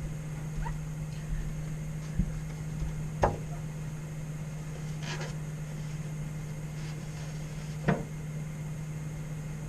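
A few scattered knocks and clicks as a computer monitor is handled and fitted onto a monitor arm mount, over a steady low hum.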